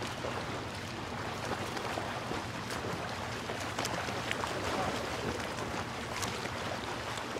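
Steady rushing noise of wind and surf, with a faint low hum underneath.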